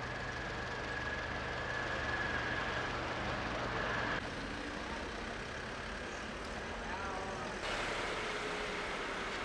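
Steady street noise of running vehicle engines and traffic, with a low engine hum, changing abruptly about four seconds in and again near eight seconds.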